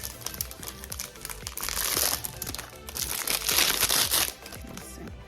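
Plastic packaging crinkling as a toy is handled and unwrapped, in two longer rustles about one and a half and three seconds in, over background music.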